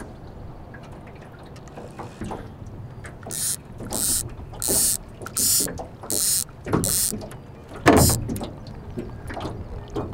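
Spinning reel on a fishing rod whirring in about seven short bursts, evenly spaced, followed by a single loud knock about eight seconds in.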